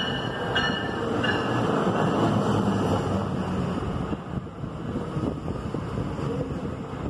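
NJ Transit bi-level Multilevel coach train, cab car first, pulling into the platform and rolling past close by, with a dense rumble of wheels on rail. Short high squeals repeat in the first second or so, then the rumble eases a little.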